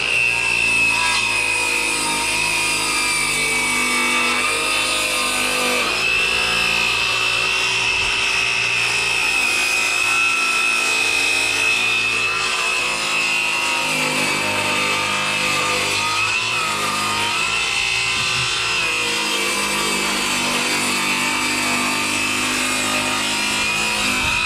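Circular saw plunge-cutting through a wooden tongue and groove siding board along a guide, its motor holding a steady high whine under load.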